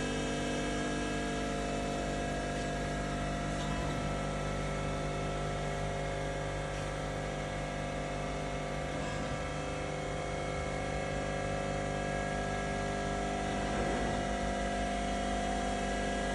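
ENSHU E130 vertical machining center running without cutting: its spindle and drives make a steady hum and whine of several pitches at an even level.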